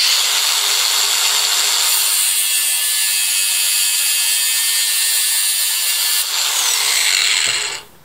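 Ryobi angle grinder with a metal cut-off wheel cutting through a steel flex-shaft cable. The grinder starts abruptly and runs loud and even; from about two seconds in, the wheel grinding into the wire adds a harsher, higher hiss. It then shuts off and spins down to a stop near the end.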